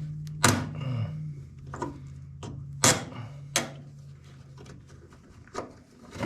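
Scattered metallic clicks and knocks, about half a dozen, the loudest about three seconds in, as screws are worked out of a sheet-metal furnace access panel and the panel is handled. A low steady hum underneath fades out about two-thirds of the way through.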